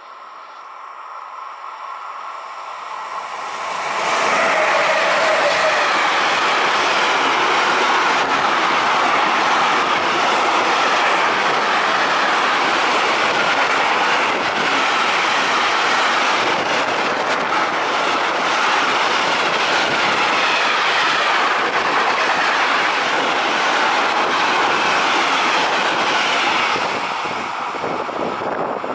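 Freight train hauled by two Vectron electric locomotives passing close at speed: it grows louder over the first few seconds as the locomotives arrive, then the intermodal wagons carrying semi-trailers run by in a long, even clatter of wheels on rails, which drops away near the end as the last wagon passes.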